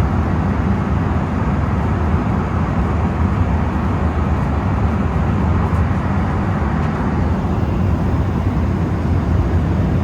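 A loud, steady low rumble of even noise with no clear tones, cutting off abruptly at the end.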